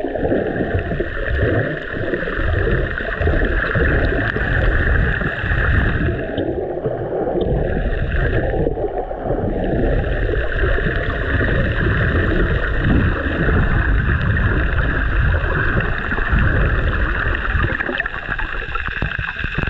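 Underwater ambient noise picked up by a camera held below the surface: a steady rushing and low rumbling of moving water.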